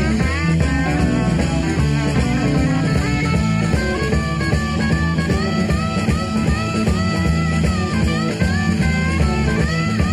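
Southern rock band playing live: an electric guitar lead line with bent notes over bass and drums.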